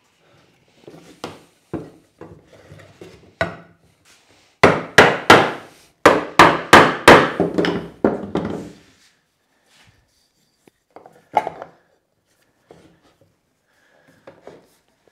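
Wooden knocks as a walnut board is seated in a wooden Moxon vise: a few light clunks, then about ten sharp knocks in quick succession, and a single knock later.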